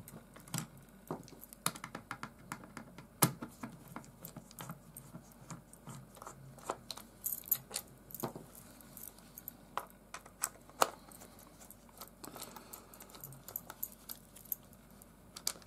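Light, irregular clicks and taps of a screwdriver working screws out of a multimeter's plastic back case, with a few sharper clicks among them.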